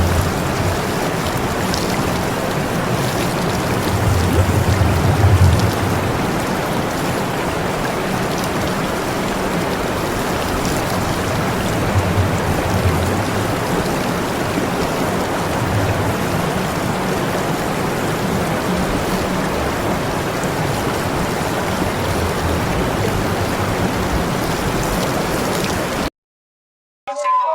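Steady hiss of spraying water, like a hose or sprinkler at full flow, with a low uneven rumble beneath it; it cuts off suddenly near the end. A brief pitched cry follows right at the close.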